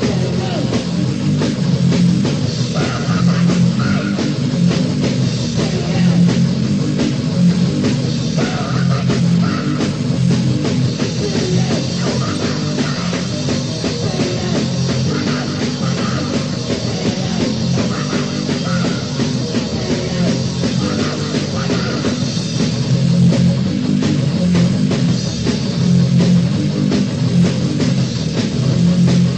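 Loud crust-punk/grindcore band recording with guitar and drum kit playing throughout.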